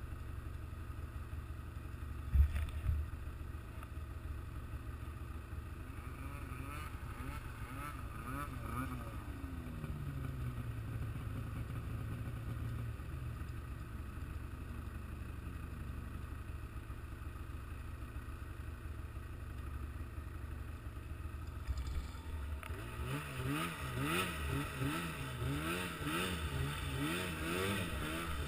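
Vehicle engine running at a low, steady note, with a single knock about two seconds in. From about 22 seconds in, the engine revs up and down over and over, roughly once a second.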